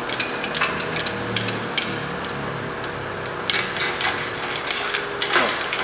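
Steel lifting chain clinking and rattling as it is handled and re-hooked on an engine hoist's load leveler, a scattering of sharp metallic clinks over a steady faint hum.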